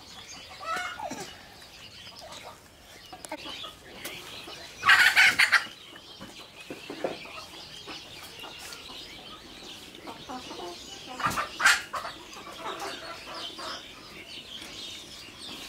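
Chickens clucking, with a loud burst of hen calls about five seconds in. Two sharp knocks come a little past eleven seconds.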